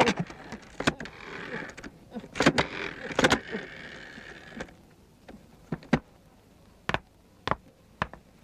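Sound-effect track of clicks and sharp knocks, with a scraping rustle from about one and a half seconds in to past four seconds, then a few single knocks roughly a second apart.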